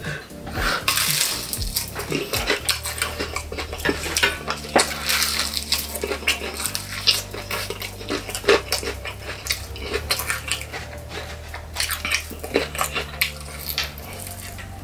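Eating fried chicken, with irregular crunching bites and chewing, gloved fingers handling the pieces and occasional light clinks of dishes. A low steady hum runs underneath. The sound comes through a camera's built-in microphone, not a close-up mic.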